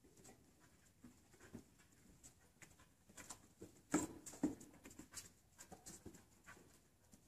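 A border collie sniffing its way along a row of search boxes, with faint short sniffs and rustles. There are two louder knocks about four seconds in, as it noses a box.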